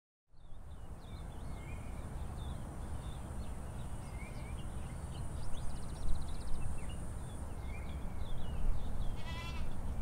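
Rural outdoor ambience: a steady low rumble like wind, with many short high chirps throughout. Near the end comes a wavering bleat from livestock such as a goat or sheep.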